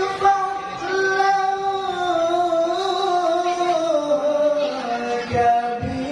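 Man's voice reciting the Qur'an in the melodic tilawah style into a handheld microphone, holding long notes that waver and glide in pitch. A couple of low microphone thumps come near the end.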